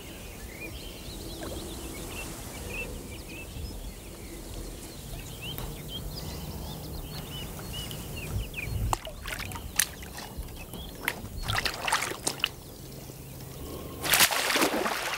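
Small birds chirping over outdoor ambience, then water splashing and sloshing in short bursts around a landing net held in the water, with the loudest splash about a second before the end.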